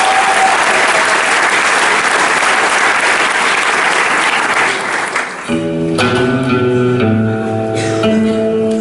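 Audience applauding loudly over music. About five and a half seconds in, the applause stops suddenly, leaving the music's held, guitar-like chords.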